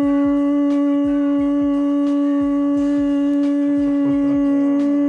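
A loud, steady droning tone with overtones, unchanging in pitch, over a run of short low thumps about three a second; a brief wavering, pitched sound comes in about four seconds in.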